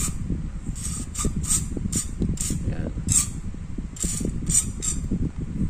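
Aerosol gun oil sprayed through a thin straw into a 1911 pistol barrel in about nine short hissing spurts, with light handling knocks of the barrel and can.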